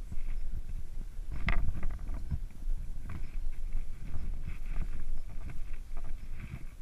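Backpack and gear scraping and knocking against sandstone walls while squeezing through a narrow slot canyon, with irregular rubs and bumps and one sharp knock about one and a half seconds in, over a low rumble on the microphone.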